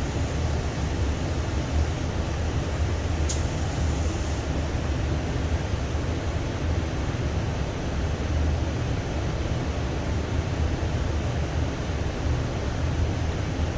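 Compressed-air spray gun spraying a thick coat of primer surfacer for a crimped texture: a steady rush of air over a low rumble. A sharp click comes about three seconds in.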